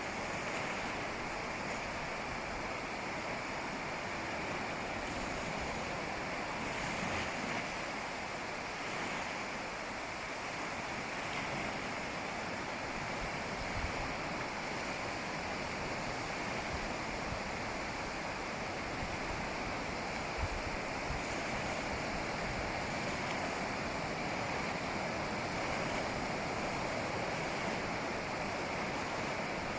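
Ocean waves breaking and washing on a beach in a steady, continuous surf, with some wind noise on the microphone.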